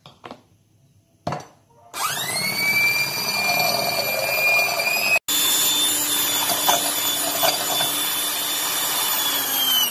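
Electric hand mixer beating eggs to a froth in a glass bowl. A click, then about two seconds in the motor whines up to speed and runs steadily, with a momentary break near the middle. Its pitch starts to fall as it slows near the end.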